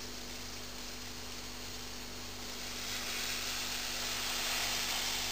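Soft steady hiss as semolina is poured in a thin stream into a pot of milk and water at the boil, growing a little louder about three seconds in.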